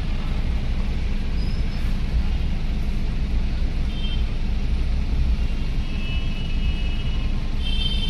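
Steady low rumble of a car's engine and road noise heard from inside the cabin as the car moves slowly in a traffic queue. Faint horn toots from other vehicles sound a few times, clearest near the end.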